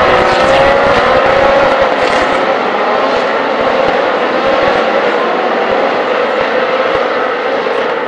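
Several Ferrari 458 Challenge race cars with 4.5-litre V8 engines running past together, their overlapping engine notes gliding slowly up and down.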